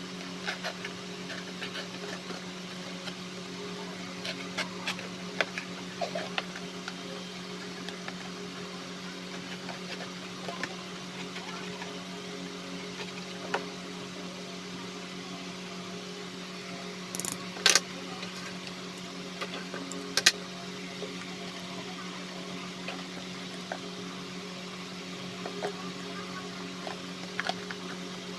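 Scissors snipping and handling a cardboard box, small scattered clicks and rustles with a few sharper snaps around two-thirds of the way in, over a steady low machine hum.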